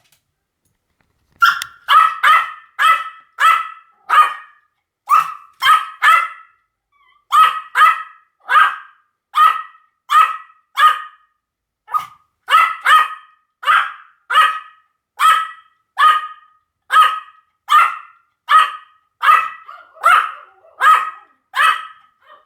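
Pomeranian barking over and over in short, sharp, high barks, about two a second, starting after a second or so of silence, with one brief pause about a third of the way through.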